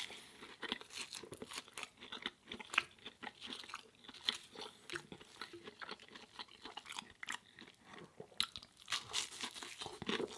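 Close-miked chewing of food, with crunches and wet mouth clicks coming irregularly, several a second.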